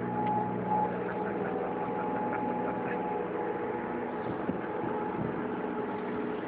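The boat's Volvo Penta 225 hp engine running at a steady, even speed, heard from on board.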